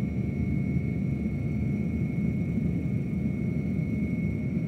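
Steady engine drone inside an aircraft in flight, heard over the crew intercom, with a thin, steady high whine above it.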